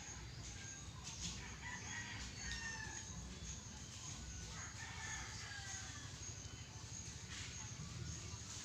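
Rooster crowing twice, each crow a call that falls in pitch.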